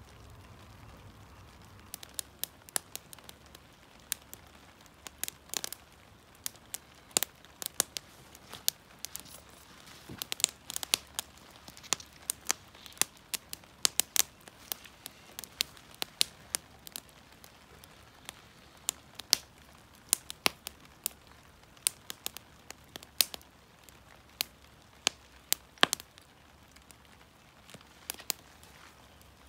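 Small campfire of split kindling crackling, with sharp, irregular snaps and pops from the burning sticks.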